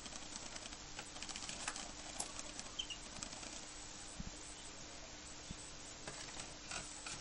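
Soft, scattered clicks and scratches from a pet cockatiel moving about and pecking, with a faint steady hum underneath.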